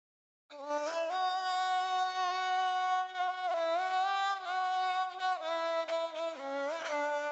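A solo bowed string instrument plays a slow melody that slides between notes. It starts suddenly about half a second in.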